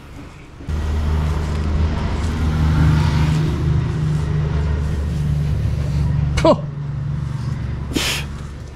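A vehicle engine running with a steady low drone that starts suddenly about a second in. A short rising squeak comes near the two-thirds mark, and a brief burst of hiss comes near the end.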